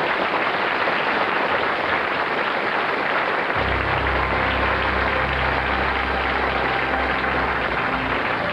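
Lecture-theatre audience applauding steadily. Low sustained closing theme music comes in underneath about three and a half seconds in.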